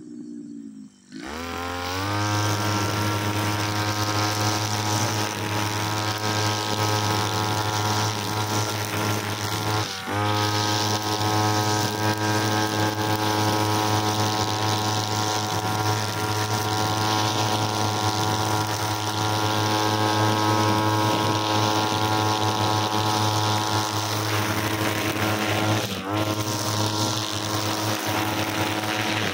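Backpack brushcutter engine revving up from low speed about a second in, then running at a steady high speed while cutting grass, with brief dips in speed twice.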